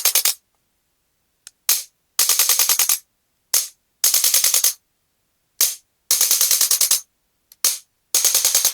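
Chiropractic adjusting gun firing in short bursts of rapid clicking thrusts, about a dozen a second, each burst lasting under a second. Four bursts come in a row, each preceded by a single click.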